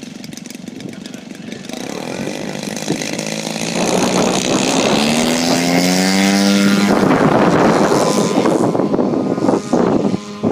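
Radio-controlled model airplane engine and propeller running. It grows louder over the first few seconds, then runs hard with a slowly rising tone about halfway through, and briefly dips twice near the end.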